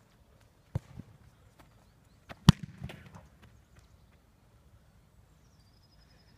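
Football being kicked: sharp thuds, one under a second in and the loudest about two and a half seconds in, followed by a few smaller knocks.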